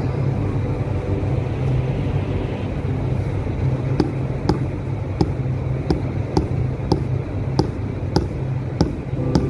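A mallet tapping a granite floor tile to bed it down, in sharp knocks at about two a second that start about four seconds in. A steady low hum runs underneath.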